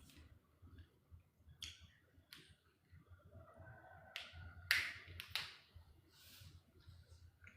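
Scattered light clicks and taps, about six over several seconds, the sharpest a pair about five seconds in.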